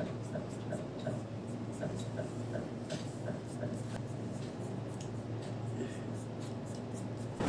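Fingers rubbing and smoothing a white powder or cream over the skin of a cheek: soft, scratchy rubbing strokes, over a low steady hum.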